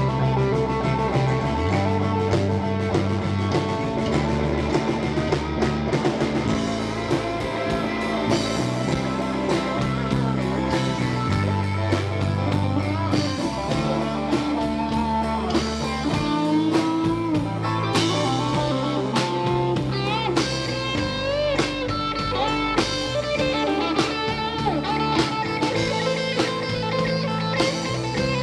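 Live country-rock band playing an instrumental break: an electric guitar lead with bent notes over bass guitar and a drum kit.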